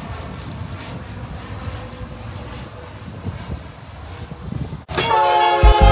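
Light single-engine propeller plane passing overhead, its engine and propeller making a steady drone. About five seconds in the sound cuts off abruptly and music begins.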